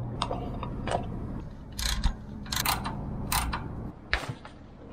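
Irregular metallic clicks and clacks of hand tools working on a chiller compressor's refrigerant fittings and valve, over a steady low hum.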